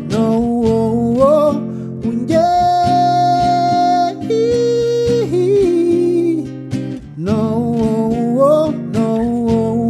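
A man sings wordless held and gliding notes over a strummed acoustic guitar in a live performance of a song, including one long high held note a few seconds in.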